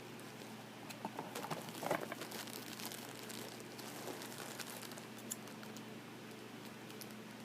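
Crinkling and rustling of a sanitary pad's individual wrapper being handled and picked open, in a cluster of small crackles and clicks that peaks about two seconds in and dies down after about five.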